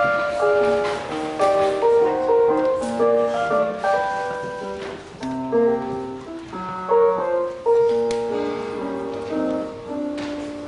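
Instrumental piano music: a melody with chords, notes struck and held one after another.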